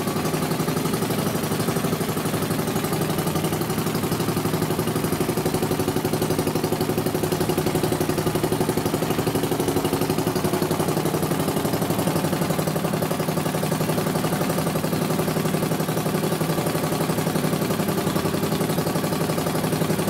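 An early single-cylinder outboard rowboat motor running steadily at one speed in a test tank, its propeller churning the water.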